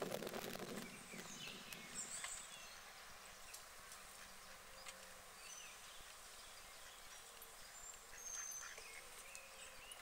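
Duck quacking faintly during the first two seconds, then quiet background with small birds chirping now and then.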